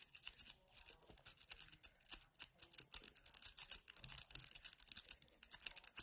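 Rake pick scraping rapidly in and out of the keyway of a brass UAP euro cylinder lock, a fast, irregular run of light metallic clicks as it jostles the pin tumblers against the tension wrench.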